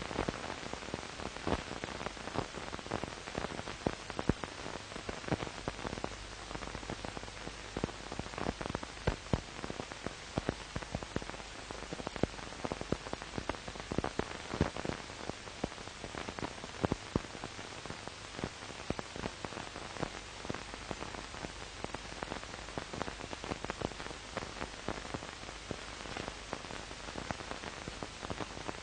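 Surface noise of an old silent-film transfer: steady hiss thick with irregular crackles and pops, over a faint low hum.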